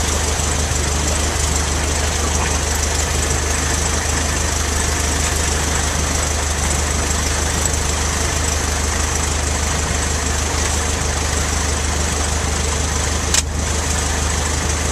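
A Cessna 152's four-cylinder Lycoming engine and propeller running steadily at low ground power, heard from inside the cockpit. A single short click sounds near the end.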